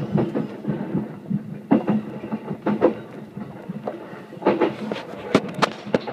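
Keihin-Tohoku line commuter train running, heard from inside the front car: a steady low rumble with irregular sharp clacks as the wheels cross rail joints and points, several in quick succession near the end.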